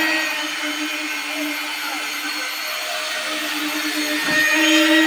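A small motor running steadily, with a constant hum and a high whine.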